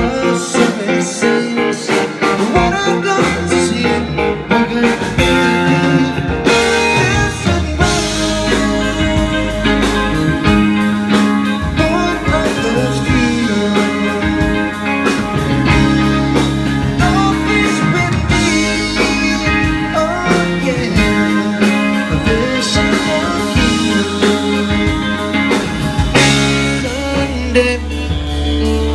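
Live electric blues-rock trio playing: a Stratocaster-style electric guitar lead over electric bass and a drum kit.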